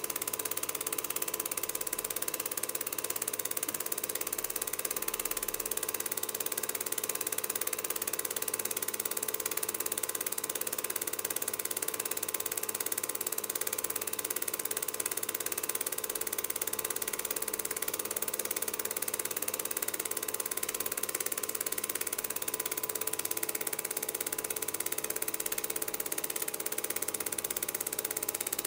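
Cine film projector running steadily: an even mechanical whirr with constant hum tones and hiss, the sound of the film being run off for transfer.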